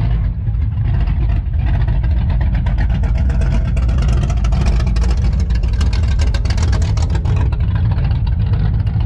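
Classic car's engine and exhaust running with a deep, pulsing rumble as the car drives slowly past at close range, loudest in the middle as it goes by.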